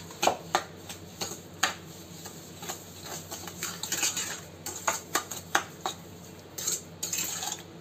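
A spoon scraping and clinking against a kadhai as sugar is stirred into thick mango pulp, in irregular scrapes and taps.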